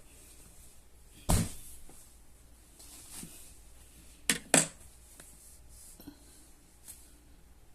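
A few sharp knocks and taps as a boxed tablet and its packaging are handled for unboxing: one loud knock about a second in, a quick pair of knocks near the middle, and a few faint ticks later.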